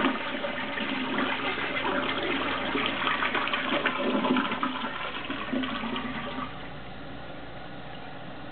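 Toilet flushing: water rushing and gurgling down the bowl in uneven surges. About six and a half seconds in it drops away to a quieter, steady hiss.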